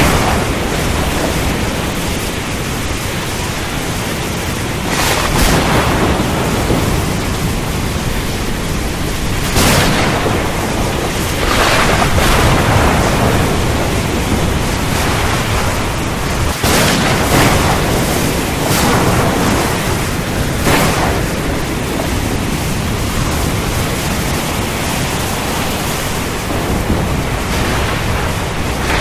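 Thunderstorm: heavy, steady rain with deep rumbling thunder, and several brief louder flares of noise, the strongest about ten, twelve and seventeen seconds in.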